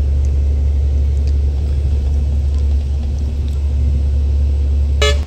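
FAW JH6 truck's diesel engine and road noise making a steady low drone heard from inside the cab while driving. About five seconds in, a vehicle horn toots briefly.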